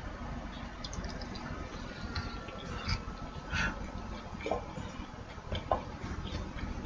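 Eating sounds: a few soft, irregular clicks and ticks from chewing and light taps of cutlery or dishes.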